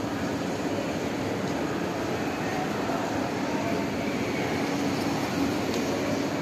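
Steady background din of an indoor shopping centre: a constant low mechanical hum with an even wash of noise, unchanging throughout.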